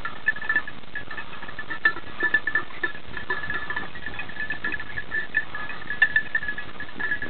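Small bells on beagles' collars jingling as the dogs run through the scrub: a steady high ringing broken into quick clinks, with a few short knocks of handling noise.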